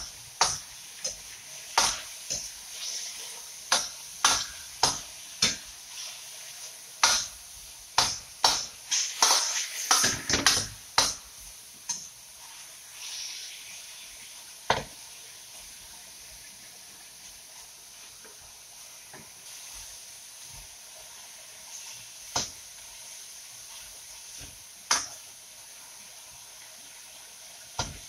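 Metal ladle and spatula scraping and clanking against a steel wok while stir-frying sliced pork, over a steady sizzle. The strokes come thick and fast for the first twelve seconds or so, then only now and then.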